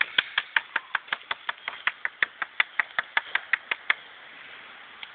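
A rapid, even series of sharp clicks, about five a second for some four seconds, stopping short, with a few more spaced-out clicks near the end.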